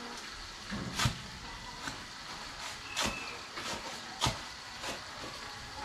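Hard objects knocking and clinking: about six sharp, irregularly spaced strikes over a steady background hiss.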